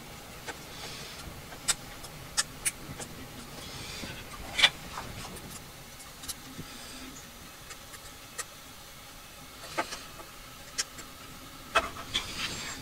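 Scattered sharp clicks and taps, about ten of them and the loudest about five seconds in, with faint rustling, as wire connectors and small parts are handled and fitted on a 3D printer's replacement main board.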